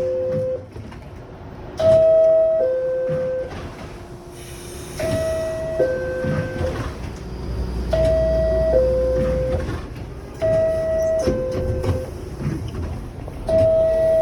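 New York City Subway R62A car door chime sounding a two-note falling ding-dong. It repeats about every three seconds, over a background of train noise.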